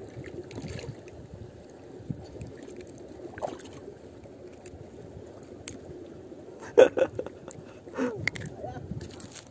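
Handling noise from a freshly caught barramundi being held and unhooked by hand: low background with a few sharp knocks about seven seconds in, the loudest moment, and a short voice-like sound about a second later.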